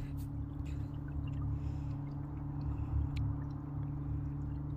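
A small boat's motor running steadily, a low even hum, with faint water gurgling and light ticks along the hull.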